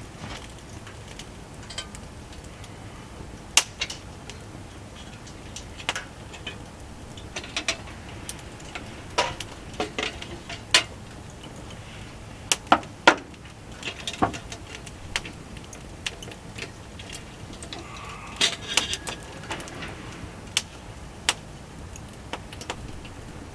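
Wood fire crackling: irregular sharp pops and snaps over a low steady hiss, with a run of louder pops about halfway through and another a little later.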